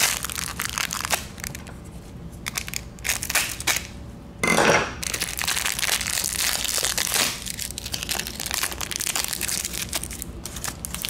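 Plastic packaging being torn and crushed by hand: a long run of crinkling and crackling, with one louder crunch about halfway through.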